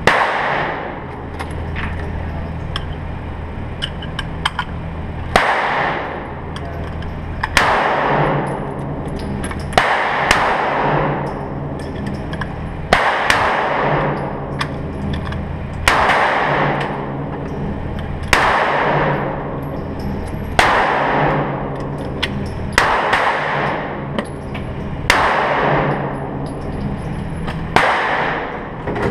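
Gunshots from other lanes of an indoor shooting range, one every two to three seconds, each ringing off the walls. Under them runs a steady low hum, with small metallic clicks of loose cartridges being handled.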